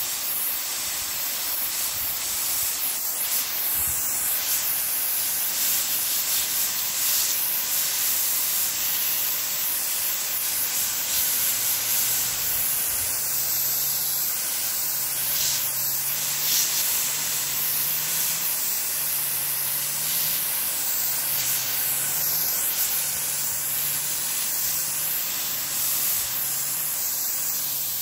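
Water sprayed as a fine mist from a watering nozzle onto young pomelo plants: a steady hiss that does not let up.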